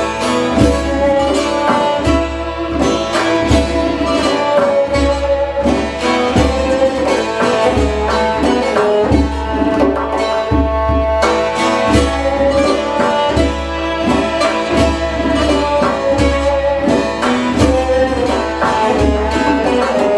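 Instrumental Greek folk tune from a small live ensemble: a violin carries the melody over a plucked lute-like instrument, with low hand-drum beats about once a second.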